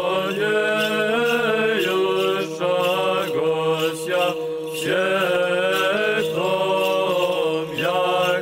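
Orthodox monks chanting in unison over a steady held low drone note, the melody moving in phrases that break off every one to two seconds.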